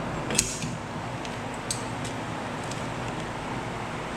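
Metal parts being handled while an electrical cabinet is taken apart: a sharp clink about half a second in and a lighter one near two seconds, over a steady background hum.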